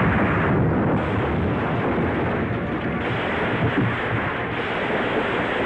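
Steady rushing roar of a motor vehicle's engine and road noise, played as a chase sound effect on a muffled 1940s film soundtrack.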